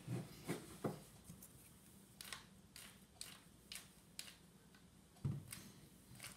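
Faint clinks and scrapes of a plastic spoon in a bowl of cereal and milk, with a few dull knocks at the start and again about five seconds in.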